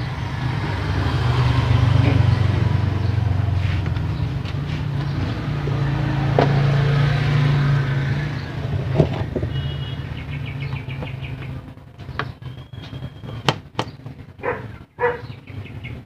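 A motor vehicle's engine running close by: a low hum that swells twice and fades out about twelve seconds in. Scattered small clicks and knocks follow.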